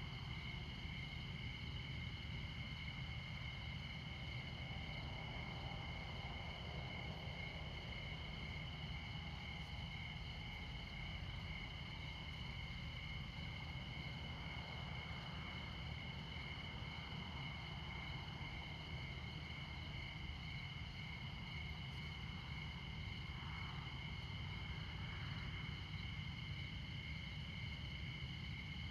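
Crickets chirping without a break in two steady high-pitched bands, over the low, steady rumble of distant interstate traffic, with a faint swell of a passing vehicle about halfway through and again near the end.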